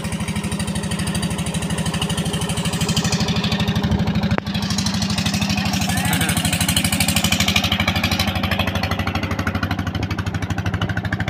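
Small wooden longboat's inboard engine running steadily with an even, rapid pulsing beat as the boat passes close by, louder and brighter around the middle.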